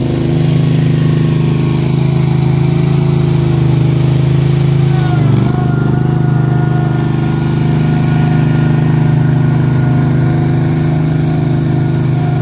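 Engines of asphalt-paving machines (a skid-steer loader, an asphalt paver and a small ride-on double-drum roller) running steadily at close range. The engine pitch dips briefly about five seconds in, then comes back.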